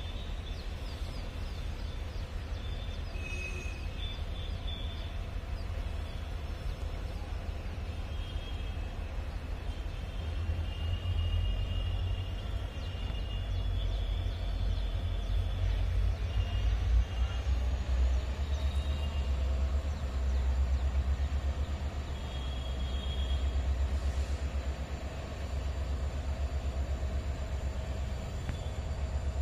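Low rumble of a distant freight train approaching along the line, growing louder from about halfway through.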